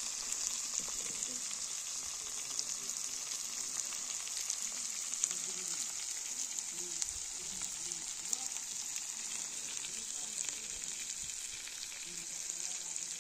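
Whole small spice-coated fish shallow-frying in oil in a wide metal pan: a steady high sizzle with scattered crackling pops.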